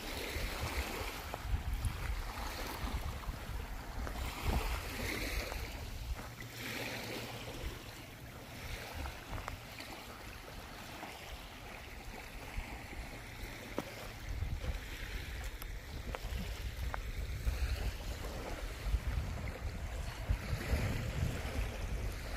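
Wind buffeting the microphone in gusts, easing for a while in the middle, over the steady wash of waves.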